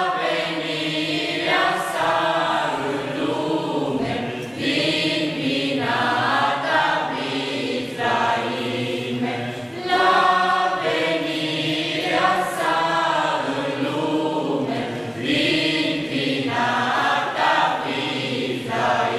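Small mixed choir of young men's and women's voices singing a Christmas carol (colind) in phrases of held notes.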